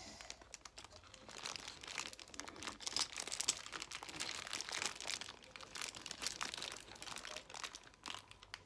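A small clear plastic bag crinkling and rustling in irregular little bursts as it is handled.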